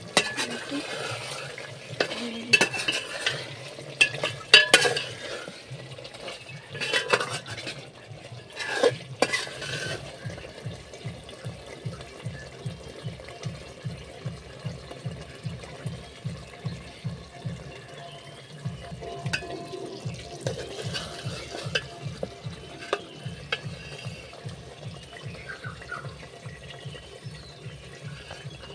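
A spoon stirring thick chicken curry masala in a pot, knocking and scraping against the pot, with the masala frying on low heat. A few loose clanks at first, then a steady rhythm of strokes, about three a second.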